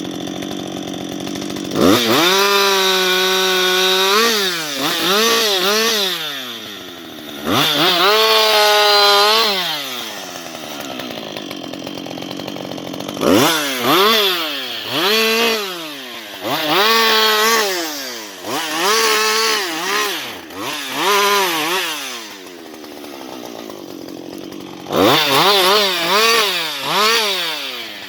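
Husqvarna 560XP two-stroke chainsaw revving again and again. Twice it is held at a high steady full-throttle pitch for about two seconds, and in between it gives many short blips of the throttle that fall back to idle.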